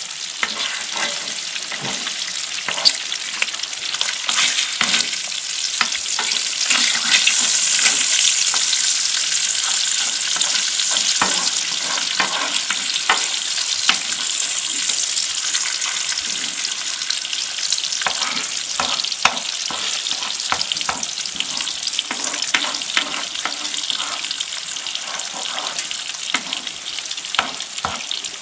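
Eggs and sausage slices sizzling in a frying pan on a wood stove, with a metal spoon repeatedly scraping and clicking against the pan. The sizzle swells about eight seconds in, then eases a little.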